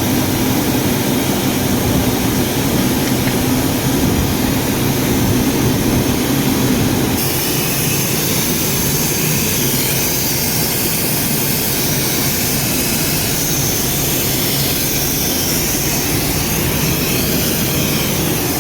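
A running machine making a loud, steady noise with a low hum; about seven seconds in the hum drops away and the sound turns to a brighter hiss.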